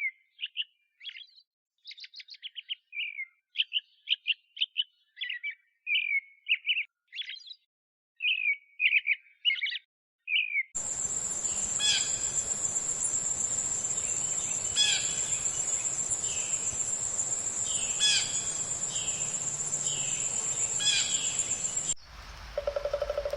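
Songbird singing quick warbled phrases for about ten seconds. It then switches to a different recording: a steady high-pitched buzz, with a bird call repeating every couple of seconds over it, and a further change near the end.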